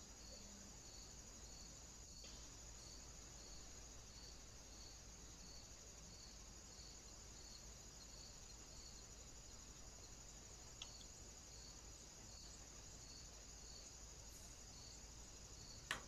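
Faint insect chorus of crickets: a steady high trill, with a short chirp repeating about every three-quarters of a second. A small tick about eleven seconds in.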